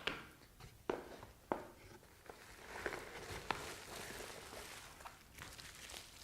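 Faint handling of packaged accessories: several sharp clicks and taps in the first second and a half and again about three and a half seconds in, with soft rustling of packaging in between.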